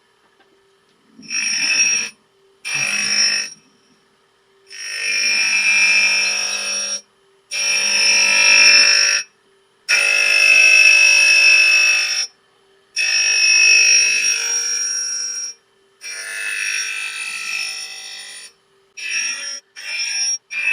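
Surface grinder's wheel grinding steel, a high-pitched screech that comes in bursts of one to three seconds as the table carries the work back and forth under the wheel, with short gaps at each reversal and shorter bursts near the end. A steady motor hum runs underneath.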